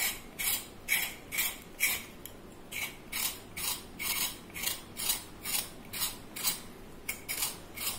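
Small knife scraping the skin off a pointed gourd (parwal), short rasping strokes about two to three a second, with a brief pause about two seconds in.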